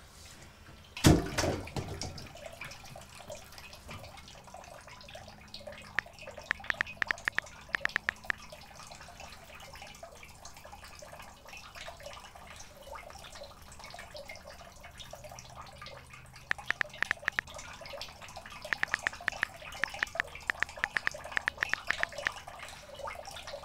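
A loud clank about a second in, as a frying pan is set down in a steel sink, then faint water and drips, with several runs of quick, light taps from typing on a smartphone keyboard.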